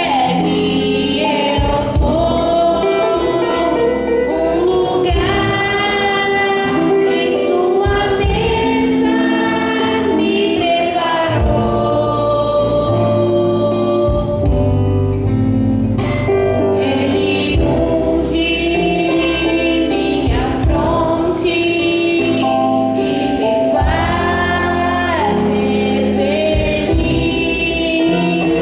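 A boy singing a church song, with instrumental accompaniment that holds sustained bass notes under the melody.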